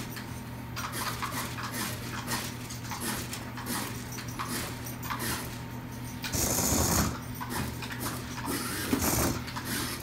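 Small electric motor and gears of an Air Swimmers flying shark toy's tail drive whirring and clicking in a rapid mechanical patter over a steady low hum. A louder rustling comes about six seconds in, with a smaller one near the end.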